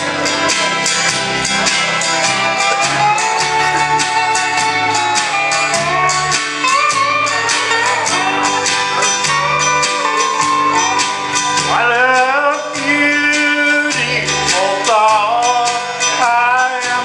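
Country band playing, with plucked guitar, a stepping bass line and a steady beat; a lead instrument slides up between notes several times in the second half.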